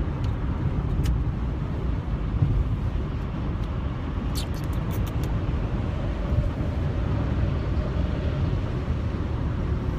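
Steady road and engine noise inside a moving Buick LeSabre's cabin: a low, even rumble of tyres and engine. A few faint clicks come about four and a half seconds in.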